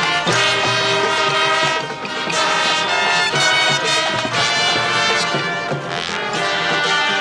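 High school marching band playing loudly: sustained brass chords with horns, trumpets and trombones, over percussion.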